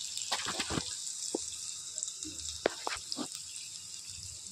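A few light metal clinks and knocks from a small aluminium tempering pan of hot oil being handled, over a steady hiss.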